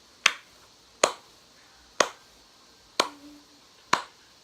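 Sharp clicks, five in a row, about one a second at a slightly uneven pace.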